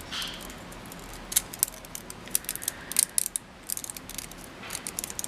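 3D-printed plastic support material clicking and snapping as it is pried and broken away from a printed part: a run of sharp, irregular clicks.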